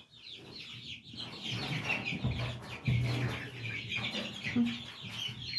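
A group of young chickens peeping and clucking, many short high calls overlapping without a break, with a low hum under them in the middle.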